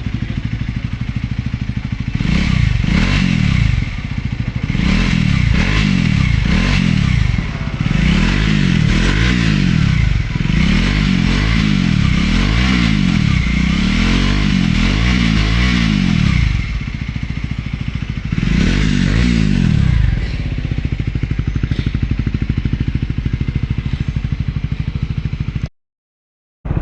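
Triumph Speed 400's single-cylinder engine running through a new Muff City slip-on exhaust, revved in about nine quick blips that rise and fall back to idle, then idling with one more rev near the middle before settling back to a steady idle.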